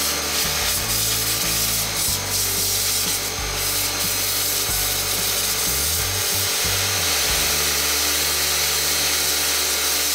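Pressure washer's high-pressure water jet spraying against a metal-link rain chain: a steady, loud hiss of spray, with a low hum underneath.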